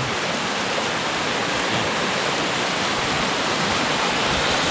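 Flooded creek rushing past, a loud, steady roar of fast water swollen by heavy rain.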